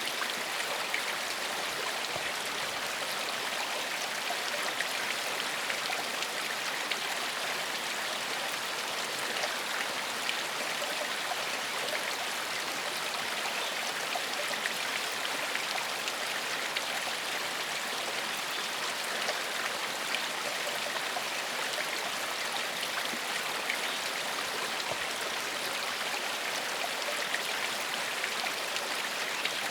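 Shallow stream flowing steadily over stones, a continuous burble and splash of running water.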